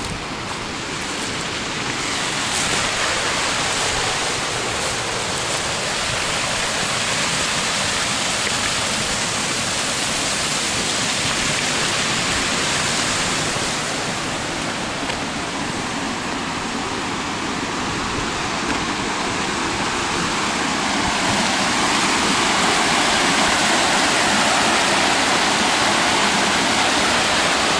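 Rushing water of a small hillside stream cascading down a rocky gully in little waterfalls: a steady rush that grows louder over the last several seconds.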